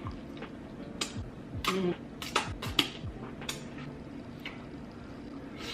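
Close-miked eating sounds: a string of sharp, wet mouth clicks and smacks from chewing saucy food, spaced irregularly, about a dozen in all.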